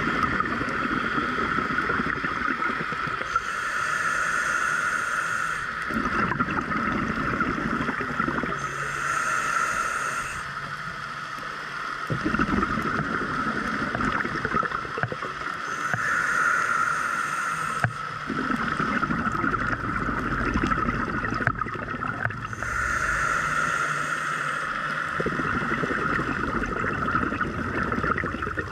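Scuba diver breathing through a regulator, heard from the camera underwater: a high hiss on each inhale alternates with a bubbling gurgle on each exhale, about five breaths in slow, even rhythm. A steady hum runs underneath.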